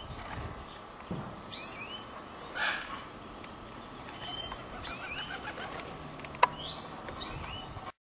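Garden birdsong: a small songbird repeating short, curved chirps every second or two. A brief rush of noise comes about two and a half seconds in, and a single sharp click, the loudest sound, comes near the end.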